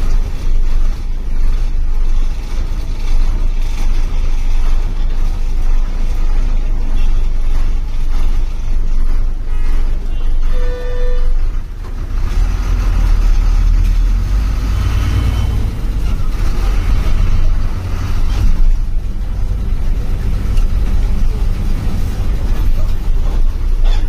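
Bus running on the road, heard from the driver's cabin: a steady low engine rumble with road noise, growing heavier about halfway through. Just before that, a short horn blast lasts about a second.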